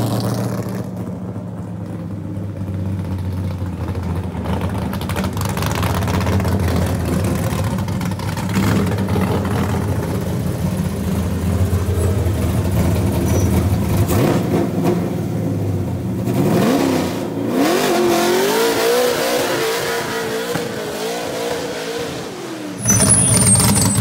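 Chevrolet race truck's naturally aspirated engine running steadily as the truck rolls around. About sixteen seconds in it accelerates, the engine note rising and then holding at a higher pitch, and it turns louder for a moment near the end.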